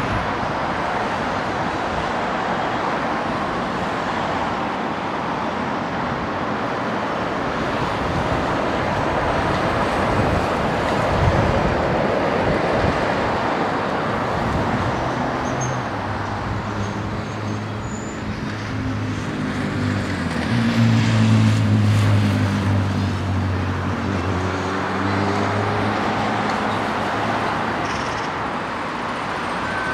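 Steady traffic noise. About halfway through, a low engine hum joins it, swelling for a few seconds and then fading near the end.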